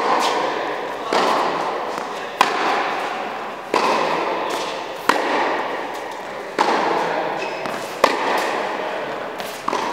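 Tennis balls struck by rackets in a groundstroke rally, a sharp pop about every second and a half, each ringing on in the reverberant indoor tennis hall.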